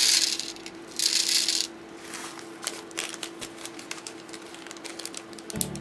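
Small seed beads poured from a plastic bag into a plastic tray, rattling in two short bursts in the first two seconds, followed by scattered light clicks. Music comes in near the end.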